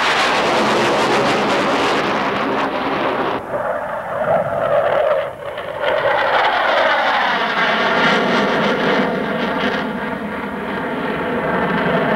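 Saab 35 Draken jet fighter's single turbojet engine running loud as the aircraft flies its display pass and pulls up into a climb. Its pitch falls in the second half as it goes past.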